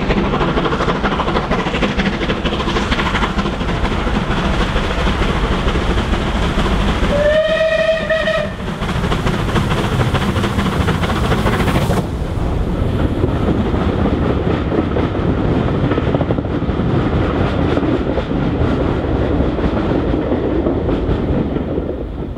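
Bulleid Light Pacific steam locomotive working hard with a passenger train, its exhaust chuffing loudly. One short whistle blast sounds about seven seconds in.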